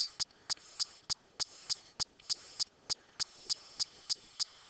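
Steady, evenly spaced ticking, about three ticks a second, over a faint background hiss.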